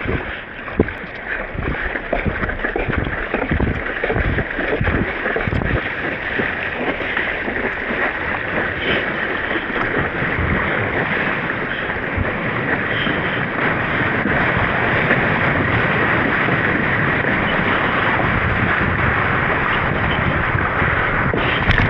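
Wind buffeting the microphone over rushing water and surf, a steady noise that gets a little louder in the second half.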